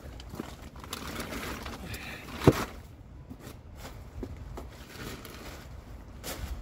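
Wind rumbling on the microphone, with one sharp click about two and a half seconds in.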